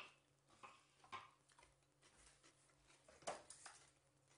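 A few light knocks and clicks against a quiet kitchen, the loudest a little past three seconds and another at the very end, as the cast-iron stovetop toastie maker is taken by its handles on the gas burner grate to be turned.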